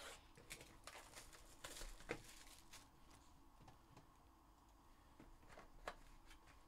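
Faint clicks, taps and rustles of hands handling and opening a cardboard trading-card box, with a slightly louder tap about two seconds in and another near the end.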